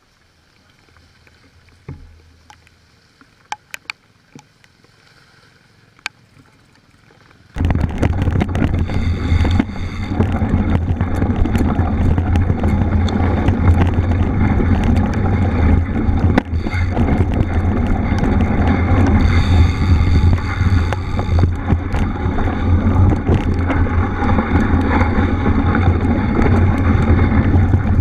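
A few faint clicks, then about seven and a half seconds in a sudden loud, steady rush of wind buffeting the microphone, with the rumble and rattle of a bicycle riding off-road.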